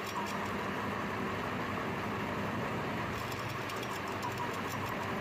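Lathe running steadily with a wooden cylinder blank spinning between its chuck and tailstock centre, with a brief patter of light ticks about three seconds in.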